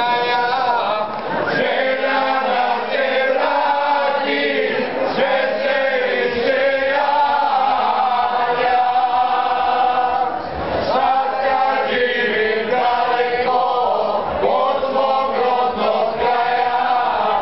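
Group of men singing a folk song in bećarac style together in full voice, holding long sung lines with short breaks between phrases.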